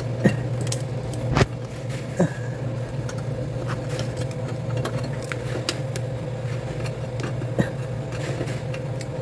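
Scattered light clicks and rattles of a plastic cable tie being threaded and pulled tight to hold a washing machine's motor capacitor to the frame, over a steady low mechanical hum.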